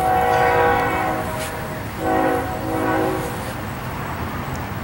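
Train horn sounding two long blasts, each a chord of several steady tones, with a short break between them.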